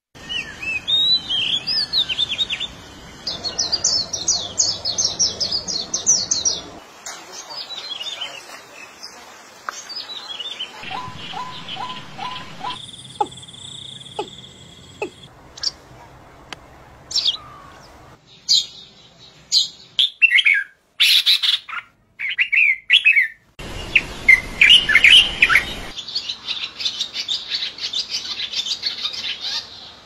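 A string of different wild birds' songs and calls cut one after another, changing every few seconds: runs of whistled song, chirps and sharp call notes. Among them are an oriental magpie-robin's song at the start and a white wagtail's calls around the middle.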